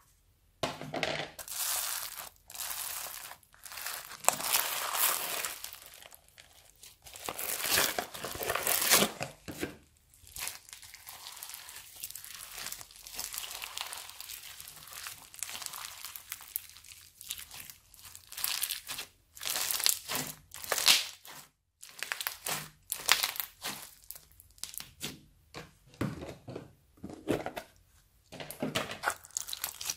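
Slime being stretched, squeezed and mixed with small plastic fuse beads and cut drinking-straw pieces, in irregular bursts with short pauses between them.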